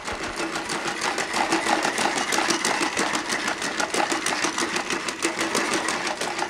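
Unitree A1 robot dog's leg motors running as it walks, a steady whine under rapid, even mechanical clicking from its joints and gait.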